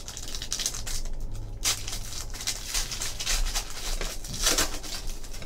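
Trading cards being flipped through by hand: card stock sliding and rustling in a run of short scrapes, the loudest about a second and a half in and again near the end.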